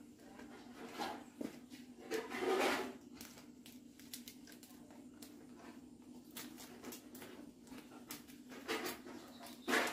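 Fresh banana leaves rustling and crinkling as they are laid over a pot and pressed down around its rim by hand, loudest a couple of seconds in and again near the end, over a steady low hum.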